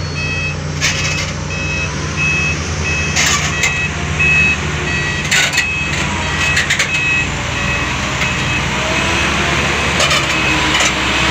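Heavy diesel earthmoving machinery running with a steady low engine hum, a backup alarm beeping about one and a half times a second, and several sharp knocks scattered through.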